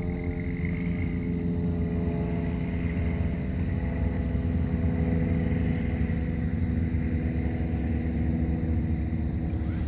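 Blade 230S electric RC helicopter, with a carbon-fibre frame and metal rotor head, running on the ground: a steady multi-pitched whine from its brushless motor, gears and spinning rotor. Near the end a rising whine starts as it spools up.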